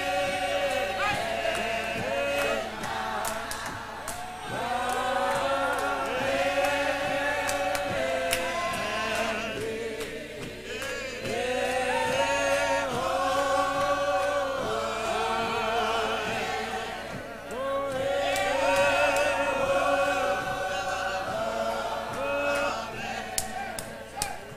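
Mixed gospel hymn choir of men and women singing a cappella, the hymn moving in long held phrases with short breaks between them, with hands clapping along.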